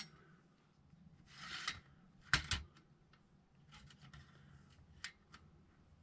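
A metal live trap being handled and set by hand: rustling and rubbing, then a cluster of sharp metal clicks about two and a half seconds in, followed by light scattered clicks.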